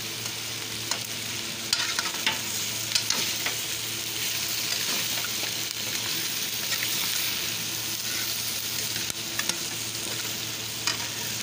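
Chicken feet sizzling steadily as they fry in oil in a stainless steel wok, stirred with a metal spoon that clinks and scrapes against the pan several times.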